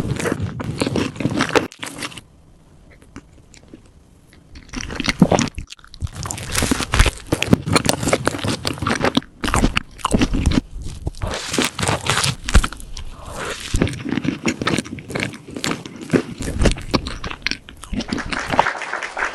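Close-miked eating sounds: biting into and chewing a cream cake, with wet, crunchy clicks. The eating stops for a couple of seconds about two seconds in, then resumes and runs on.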